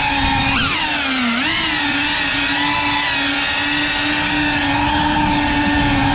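FPV racing quadcopter's brushless motors and propellers whining steadily. The pitch briefly jumps, then dips and recovers about a second in, with the throttle changes.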